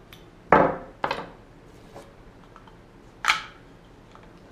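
Small plastic GoPro mount pieces being handled and fitted together: a few sharp clicks and knocks, the loudest about half a second in, another about a second in and a third a little after three seconds.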